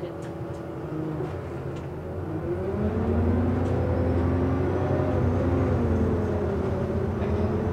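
Bus engine and drivetrain heard from inside the passenger saloon, the bus moving; about two and a half seconds in the engine note rises and grows louder as it accelerates, then holds steady.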